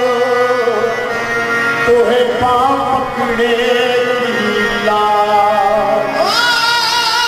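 Qawwali singing: a man sings a melismatic line over a harmonium's held chords, with tabla. About six seconds in, the singing leaps higher.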